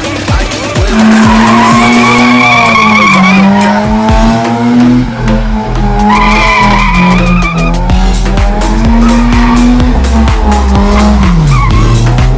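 A car doing donuts: its engine is held at high revs, wavering up and down, while the spinning rear tyres squeal and smoke. The squeal swells twice, about two seconds in and again around the middle.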